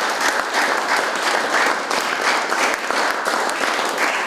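Audience applauding: many hands clapping at once in a dense, steady clatter.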